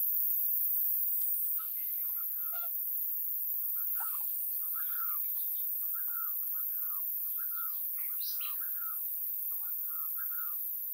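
Puppies whimpering in a run of short, high whines, about two a second, starting about a second and a half in.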